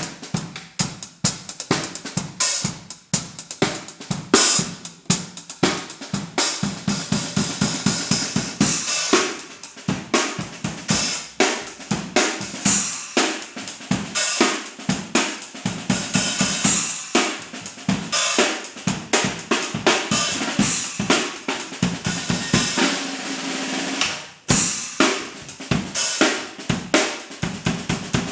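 Acoustic drum kit playing a fast, busy drum and bass groove of snare, bass drum and hi-hat, with handmade Turkish Murat Diril cymbals: an Arena hi-hat and small splashes, one of them a 6" splash laid on the snare head. About three quarters of the way through, the cymbals ring on in a wash, then the playing drops out for a moment.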